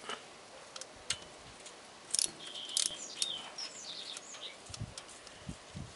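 Small birds chirping several times, with short high notes and quick glides about two to four seconds in. A few faint sharp clicks come from a ring spanner working the nut on a bicycle brake cable clamp.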